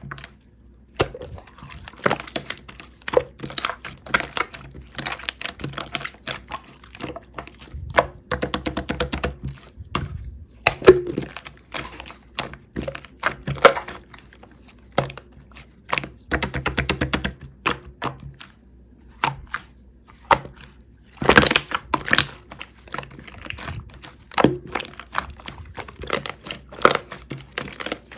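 Irregular clicks, taps and knocks of utensils and containers being handled while a dessert is made, with a louder cluster of knocks about two-thirds of the way through.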